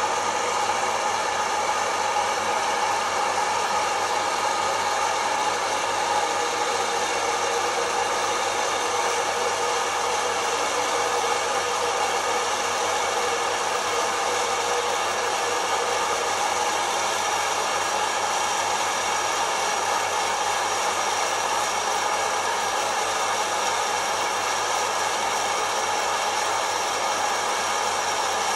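Kaffelogic fluid-bed coffee roaster running, its fan blowing hot air up through the tumbling beans in a steady whoosh with a faint hum.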